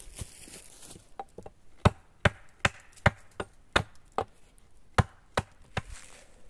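Hatchet chopping at a wooden branch held against a log stump: a run of about a dozen sharp blows, two or three a second, starting about a second in and stopping near the end.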